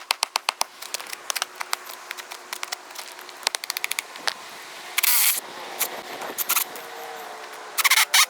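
A rapid, irregular series of sharp clicks and knocks, with a brief loud scraping hiss about five seconds in and another near the end.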